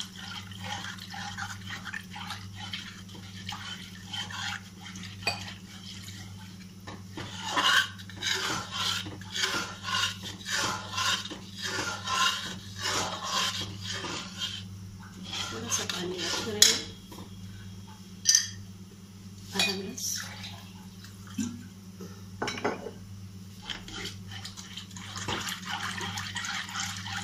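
A spoon stirring and scraping in a pan as milk is worked into a flour-and-butter roux for white sauce: a quick run of strokes in the middle, then a few separate utensil clinks, over a steady low hum.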